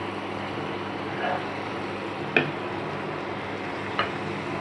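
Curry gravy bubbling steadily in a pan, with three brief knocks as pieces of fried fish are put into it one by one.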